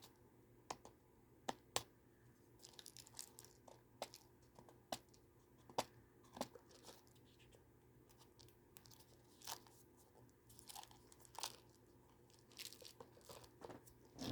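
Faint scattered clicks, crackles and short rustles of food packaging being handled and torn.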